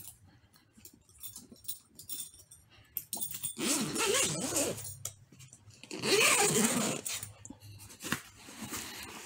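Light clicks from handling the padlock and zipper pull of a soft rifle case, then a dog vocalizing in two bouts, the first about three and a half seconds in and the second about six seconds in.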